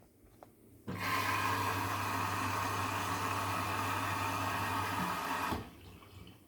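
Indesit MyTime EWD71452 washing machine at the start of its cycle: a steady mains hum with rushing water comes on about a second in and cuts off abruptly about five and a half seconds in.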